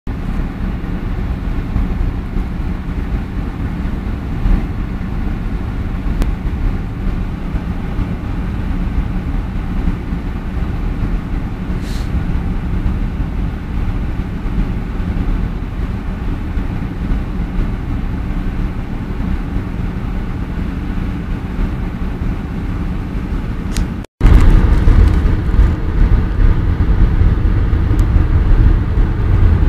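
A car driving, heard from inside the cabin: a steady low engine and road rumble. The sound drops out for an instant about 24 s in, and the rumble is louder afterwards.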